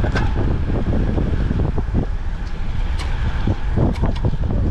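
Wind rumbling on the microphone of a handlebar-mounted camera on a moving road bike, with a few light clicks through it.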